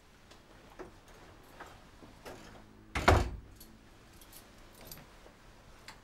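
A door shuts with a single loud thud about three seconds in, with a bunch of keys jingling and small clicks around it.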